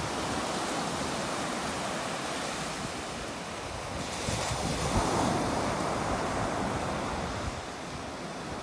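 Sea surf breaking and washing up on a sandy beach, with wind blowing on the microphone; the wash swells loudest about halfway through.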